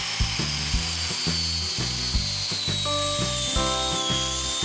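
Corded Ryobi angle grinder running with its disc cutting into the Kevlar layers of a bulletproof vest, a high whine that slowly falls in pitch through the cut. Background music with a steady beat plays underneath.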